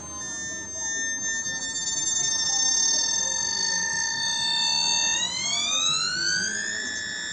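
VVVF inverter and traction motor whine of a Tokyu 9000 series electric train accelerating. A steady whine made of several tones holds for about five seconds, then climbs smoothly in pitch for under two seconds and levels off higher.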